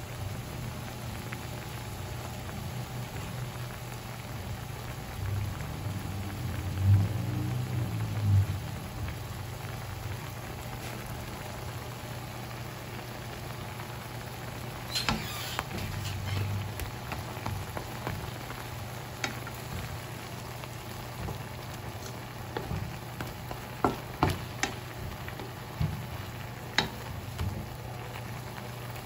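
Shrimp frying in a garlic-butter sauce in a pan, with a steady bubbling sizzle. There are a few low thuds about seven and eight seconds in, and several sharp clicks of a wooden spatula against the pan near the end.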